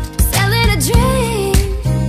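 Pop love song: a sung vocal melody comes in about half a second in, over sustained backing chords and a steady beat.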